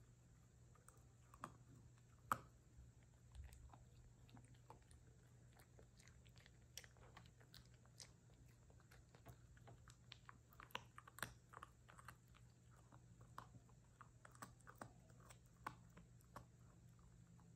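Puppy chewing and crunching a small treat: faint, irregular clicks and crackles of its teeth, thicker in the second half, with one sharper crunch about two seconds in.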